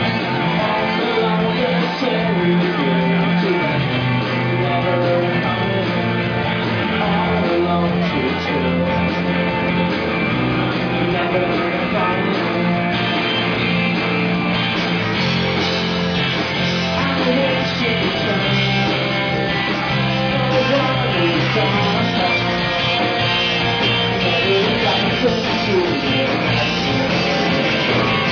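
Live rock band playing, with singing over electric guitars and bass.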